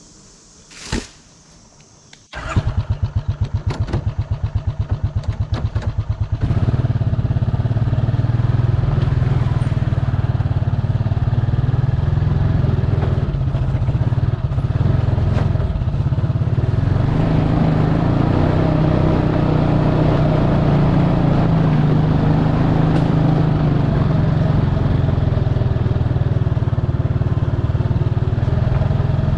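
A brief knock, then an engine starts about two seconds in, runs unevenly for a few seconds, and settles into steady running about six seconds in.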